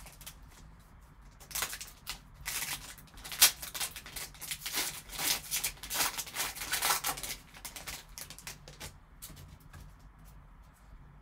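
Wrapper of a hockey card pack crinkling and tearing open in gloved hands: a dense run of crackles for about six seconds, then lighter ticks as the cards are handled.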